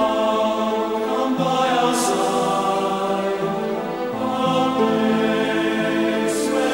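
Background music: slow choral singing in long held chords that change every second or two, with a sung hiss of consonants twice.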